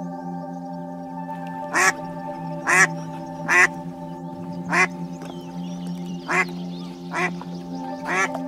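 Ducks quacking: a series of about seven short quacks, roughly one a second, starting about two seconds in, over background music with steady held notes.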